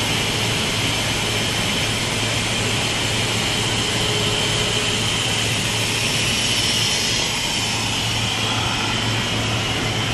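Automatic laminating machine for corrugated board running on its trial run: a steady mechanical noise with a constant low hum.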